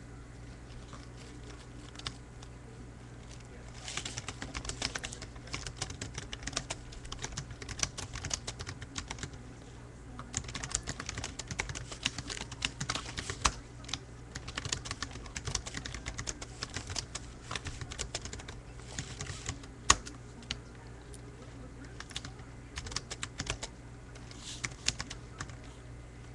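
Typing on a computer keyboard in quick runs of keystrokes, starting about four seconds in, with short pauses and one louder keystroke partway through.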